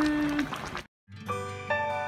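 A voice trails off on a long held word, then after a moment of silence soft instrumental outro music starts, with gentle sustained notes struck one at a time.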